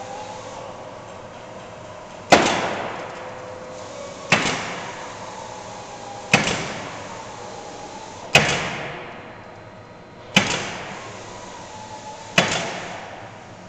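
Pneumatic nailer on an automated framing-table nailing bridge firing nails into the wood sheathing of a panel, six sharp shots about two seconds apart, each followed by a short fading tail.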